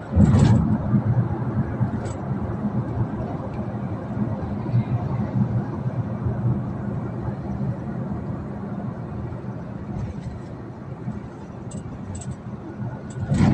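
Steady rumble of a moving vehicle and the road traffic around it, heard from inside the vehicle. There is a louder rush just after the start and again near the end.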